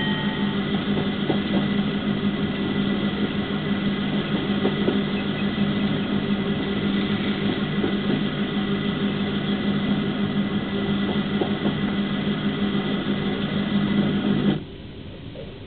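Sound-equipped HO scale model of an EMD GP9M diesel locomotive playing its diesel engine sound through a small speaker: a steady hum holding one pitch, which cuts off suddenly near the end. The locomotive bell's ringing tails off about half a second in.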